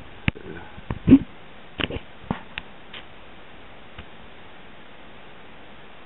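A handful of short clicks and knocks in the first three seconds, one of them a brief sniff-like rustle about a second in, then only a steady faint hiss.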